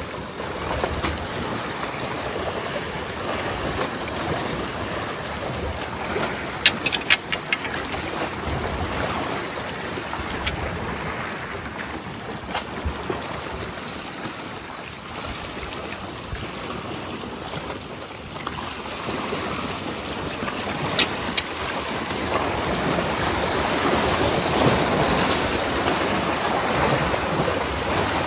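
Sea waves washing and splashing against the rocks of a breakwater, with wind buffeting the microphone; the wash grows louder over the last third. A few sharp clicks sound about a quarter of the way in and again about three-quarters in.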